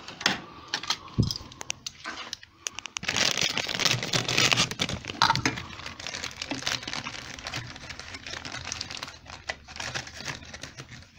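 Clear plastic bag crinkling and rustling as it is handled and opened, most densely in the middle. Metal tools clink and clatter in a steel toolbox drawer, sharp clicks through the first couple of seconds.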